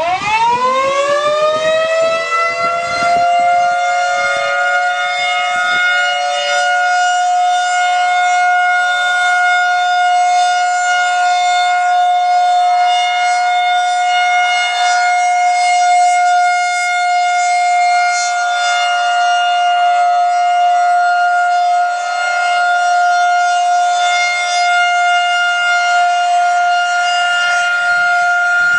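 Federal Signal 2001-130 electromechanical outdoor warning siren starting up, its pitch rising over about two seconds, then holding one loud, steady tone. This is its weekly test signal.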